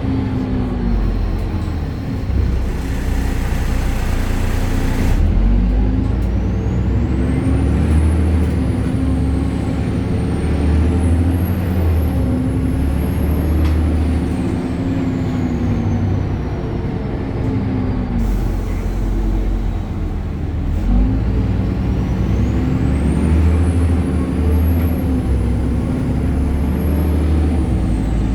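BredaMenariniBus Avancity Plus city bus with a Deutz Euro 5 diesel and ZF gearbox, driving and pulling away: the engine note rises and drops again and again as the gearbox shifts. A high whine climbs and falls alongside. Two hisses of about two seconds come a few seconds in and again about eighteen seconds in.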